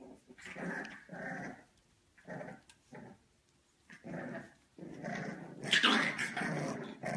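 English bulldog puppies growling in a string of short bursts as they play-fight, loudest about six seconds in.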